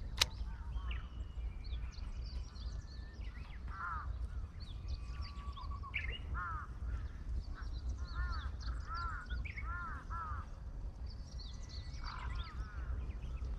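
Crows cawing in short runs of two or three calls, again and again, with smaller birds chirping higher up. A single sharp click sounds just after the start.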